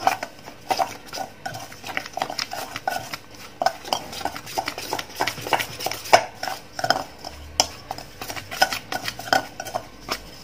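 Dry masala of cornflour and ground spices being mixed in a stainless steel bowl: a quick, uneven run of scrapes and clinks against the steel, a few strokes a second.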